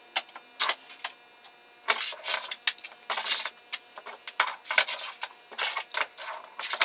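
Duplex electrical receptacles and wall plates being handled and set out on a work surface: irregular clicks, rattles and short scrapes.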